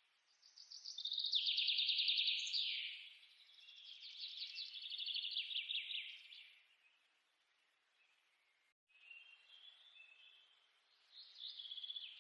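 Birds chirping in rapid trilled phrases: two long loud trills early on, a short pause, then softer chirps and a trill near the end.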